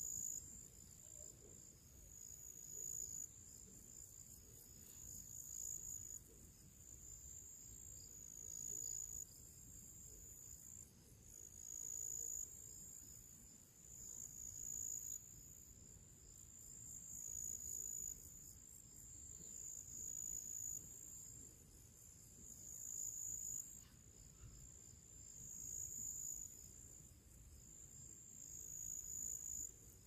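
Crickets singing in a meadow: a high-pitched trill in phrases repeating about every two seconds, each one swelling and then stopping.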